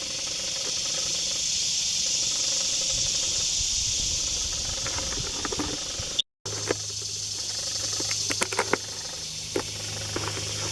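Insects droning in a steady, high-pitched chorus. The sound drops out briefly about six seconds in; after that a low hum and a few clicks join the chorus.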